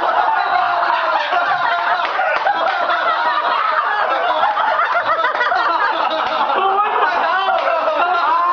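Several young men laughing hard and without a break, their voices overlapping.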